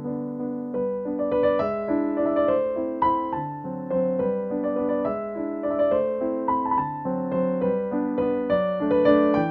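Background music: a gentle electric piano melody over held chords.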